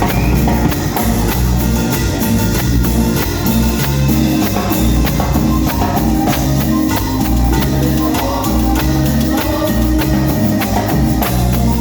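Band music, an instrumental passage with a steady beat of drums and percussion over a pulsing bass line.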